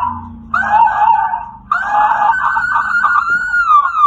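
Electronic truck warning horn sounding one of its tones: a wavering, siren-like wail. It comes as a short burst about half a second in, then a longer one that bends down in pitch near the end.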